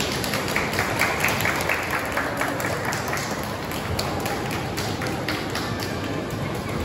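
Audience clapping, a dense patter of hand claps that thins out in the second half.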